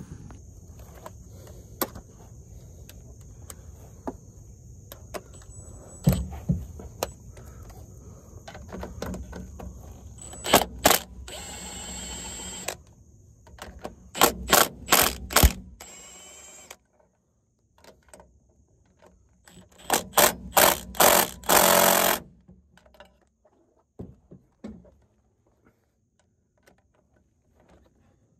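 Ratchet wrench clicking in several short spurts as it turns the driveshaft-to-pinion-flange bolts on a rear differential, with a brief scrape of metal between.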